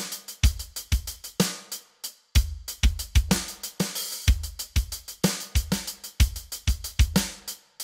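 Background music: a drum-kit beat of kick, snare and hi-hat hits, with a short break about two seconds in.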